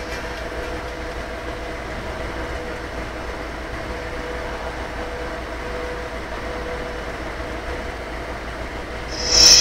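Steady vehicle running noise: a low drone with a faint steady hum, unchanging throughout. A louder, higher-pitched sound cuts in just before the end.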